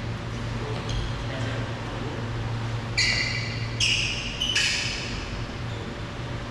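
Badminton play on an indoor court: three short, high-pitched pings about a second apart, over a low steady hum.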